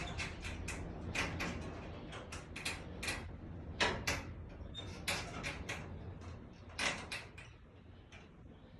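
Wind rumbling on the microphone, with irregular sharp knocks and rattles, two or three a second, that die away near the end.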